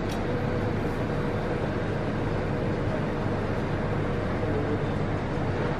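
Steady low hum and hiss of a shop's background noise, with a faint steady tone running through it.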